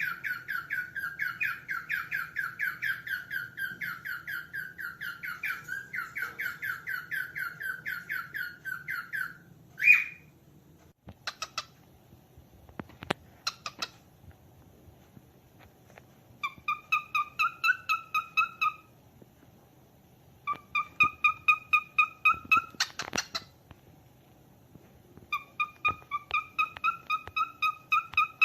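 Cockatiel calling in fast runs of repeated chirping notes, about six a second. A long run comes first, then one sharp loud call about ten seconds in, a few scattered clicks, and three shorter runs of chirps.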